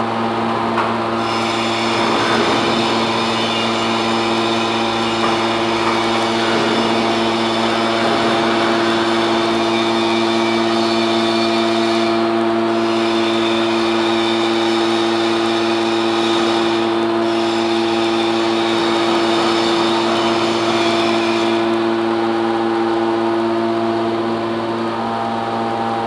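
Hydraulic scrap metal baler with a 37 kW electric motor and hydraulic pump running with a steady hum. A higher hiss comes in about two seconds in, breaks off briefly twice, and drops out a few seconds before the end.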